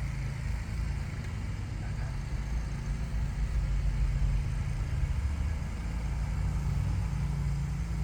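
A steady low mechanical drone of a running motor, getting a little louder about halfway through.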